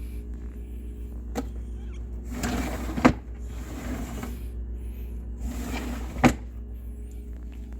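Plastic refrigerator drawer slid along its runners and knocked shut, twice, under a steady low hum; the drawer's broken clips are held with Flex Glue.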